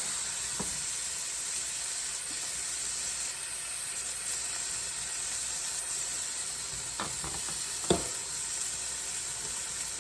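Chicken breasts sizzling steadily in hot oil in a frying pan, with a couple of short utensil knocks against the pan near the end.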